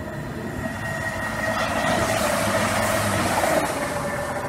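A Turbo diesel multiple unit passing by on the far line, its engine and wheel-on-rail noise growing louder to a peak about two to three and a half seconds in, then fading as it goes.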